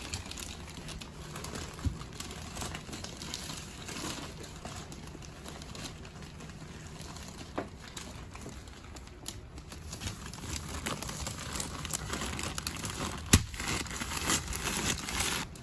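Crinkling and rustling of paper-faced insulation batts being handled and pressed into wall cavities, with a few scattered sharp clicks, the loudest about thirteen seconds in.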